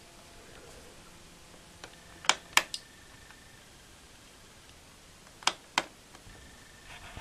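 Two pairs of sharp clicks, each pair about a third of a second apart, over faint room noise.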